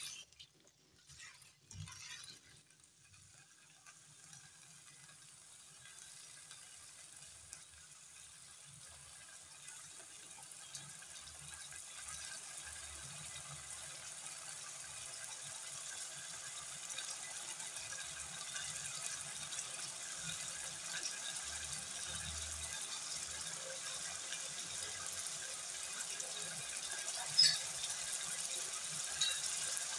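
Diced chicken frying in oil in a non-stick wok: a steady sizzling hiss that slowly grows louder as the pan heats and the chicken's water cooks off. There are a few light spatula knocks in the first two seconds and a small click near the end.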